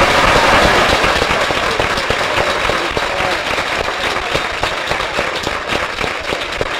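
Audience applauding, dense clapping that is loudest at the start and eases off slightly.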